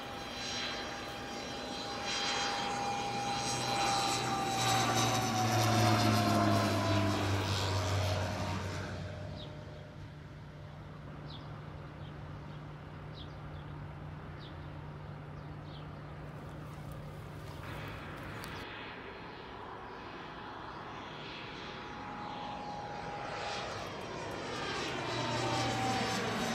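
Single-engine crop-duster airplane passing low overhead, its engine loud and falling in pitch as it goes by over the first several seconds. It fades for a while in the middle, then comes back loud near the end with its pitch falling again on another pass.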